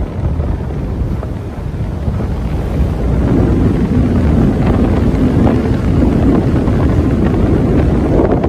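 Wind buffeting the microphone of a camera on a moving vehicle, over a low rumble of the vehicle and road; it gets louder about three seconds in.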